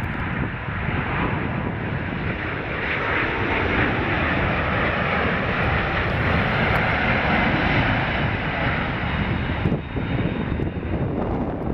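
McDonnell Douglas MD-10-10F tri-jet freighter on final approach, its three GE CF6 turbofans giving a steady jet rumble and hiss with a faint whine. The sound swells as the plane passes close by, then eases about ten seconds in.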